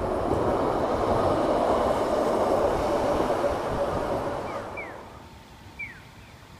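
Sapporo 3300-series streetcar running past on its street tracks, a loud rumble of steel wheels on rail with a steady motor hum, fading away about five seconds in. After it fades, a few short high chirps and one brief knock.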